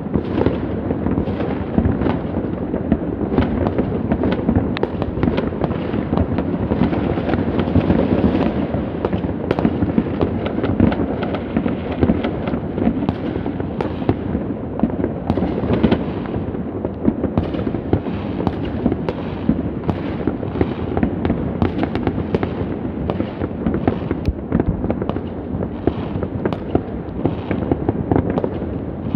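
Many fireworks going off at once: a dense, unbroken barrage of overlapping bangs, pops and crackles from rockets bursting, with no pause.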